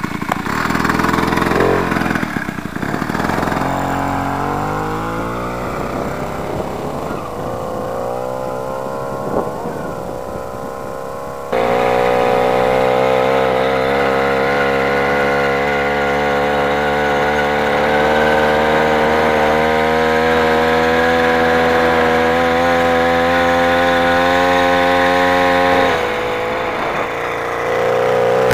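Motorized bicycle's small frame-mounted engine, fitted with a boost bottle, running under way. It revs up in pitch over several seconds, jumps abruptly louder about eleven seconds in, and holds a steady high pitch at speed before dipping near the end.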